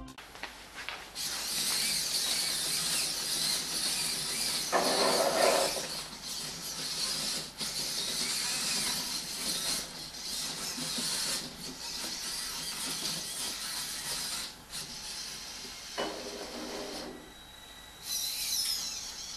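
Motors and gears of a VEX robot with four-motor omni-wheel drive whirring as it drives itself along a plastic table. There are two louder stretches of mechanical noise, about five seconds in and again about sixteen seconds in.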